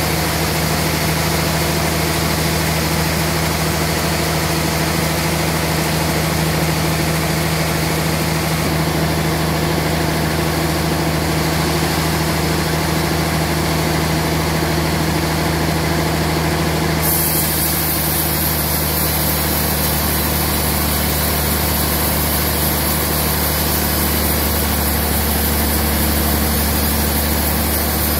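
Large sawmill log saw running steadily while sawing a trembesi (rain tree) log into slabs: a loud, even machine hum under a hiss, with the high part of the hiss changing about seventeen seconds in.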